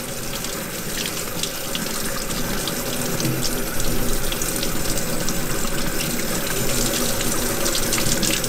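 Cold tap water running from a faucet onto a gloved hand and splashing into a stainless steel sink: a steady rush of water that grows a little louder about four seconds in.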